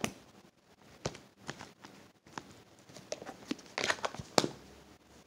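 Fingers poking and pressing a lump of thick slime, giving scattered small sticky clicks and pops, then a small clear plastic tub being handled with a cluster of plastic clicks about four seconds in.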